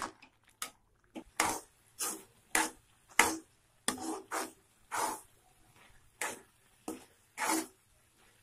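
Metal spatula scraping and pushing thick carrot halwa around a metal kadai: about a dozen rasping strokes, roughly two a second at first and a little slower later. The halwa is being stirred as its sugar cooks down and the mass begins to come away from the pan.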